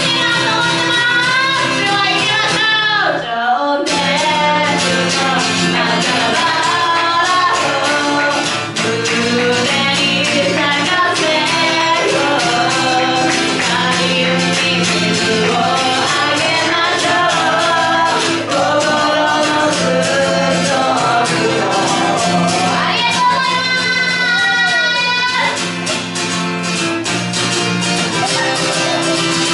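A woman singing a Japanese rock song live while strumming a steel-string acoustic guitar. The guitar's low end drops out briefly a few seconds in, and about three-quarters through she holds one long wavering note.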